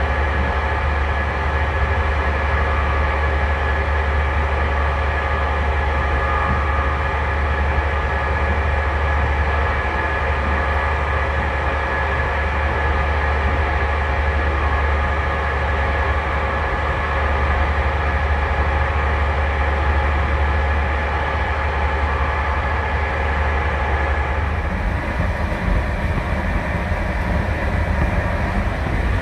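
Passenger train running, heard from inside the carriage: a steady heavy rumble with a constant whine. About 25 seconds in, the rumble turns rougher and less even and the hiss grows.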